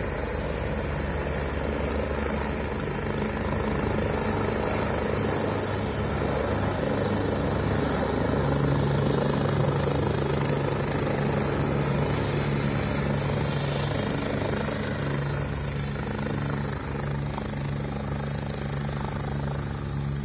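Helicopter running and taking off: a steady engine and rotor noise with a thin high whine throughout. The low hum shifts in pitch about halfway through.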